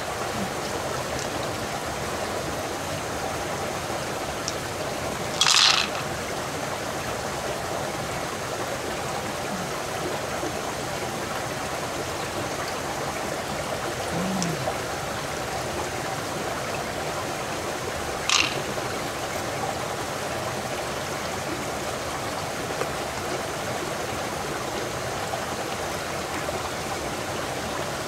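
Small river running over rocks: a steady rush of flowing water, broken by two brief sharp noises, one about five seconds in and another some thirteen seconds later.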